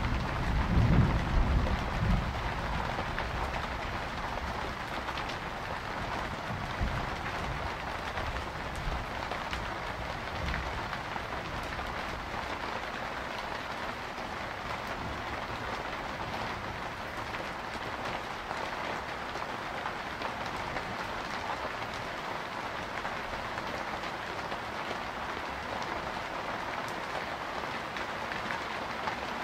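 Steady rain falling, with a low rumble of thunder at the start that dies away over the first several seconds.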